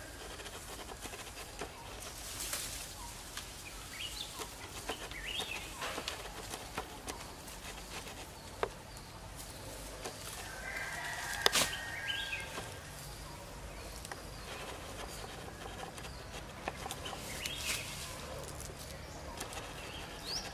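Short animal calls come every few seconds over rustling and cracking of leaves and branches, with one sharp snap about halfway through.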